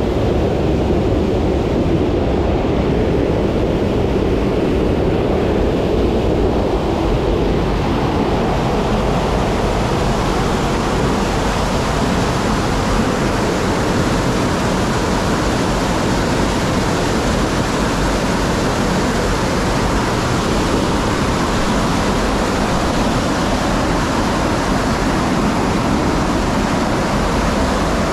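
Loud, steady rush of water inside a rocky grotto, turning brighter and hissier about eight seconds in.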